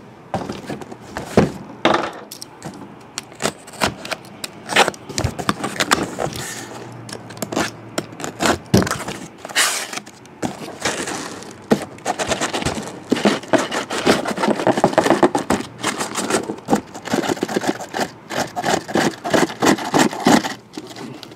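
A sealed cardboard case being opened and handled: cardboard scraping, cracking and knocking, then shrink-wrapped hobby boxes scraped out against the cardboard and set down. The scraping gets denser and steadier about halfway through.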